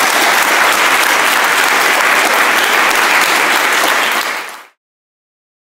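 Audience applauding steadily, cutting off in a quick fade about four and a half seconds in.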